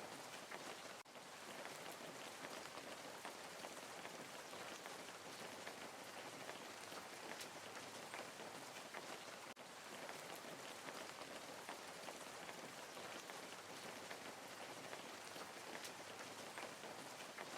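Steady rain falling, a dense even hiss with many small drop ticks, briefly dipping twice, about a second in and around the middle.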